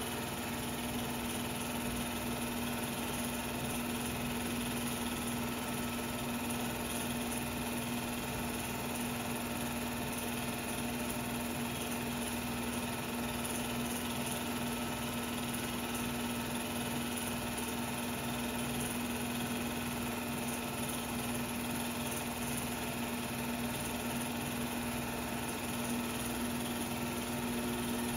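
Steady whir of a 16mm film projector running, with a constant hum and no change in speed.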